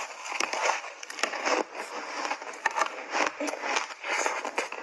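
Frozen ice block coated in milk powder being bitten and chewed: a dense run of sharp crunches and cracks, several a second, loudest at the very start.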